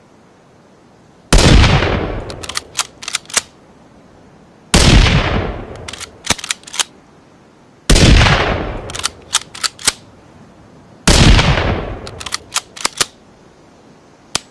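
Four Ruger American bolt-action rifle shots, about three seconds apart, each ringing out and fading over about a second. Each shot is followed by a quick run of four or five sharp metallic clicks as the bolt is worked for the next round.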